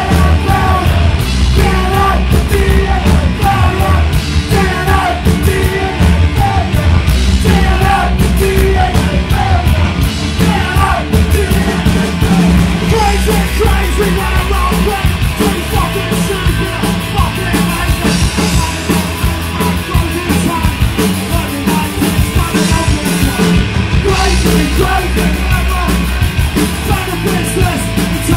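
Punk band playing live and loud, with shouted singing over the band in the first half.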